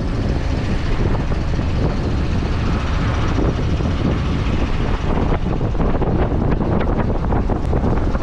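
Steady low rumble of a 1990 Fleetwood Bounder Class A motorhome under way, heard inside the cab, with wind buffeting the vehicle in high winds.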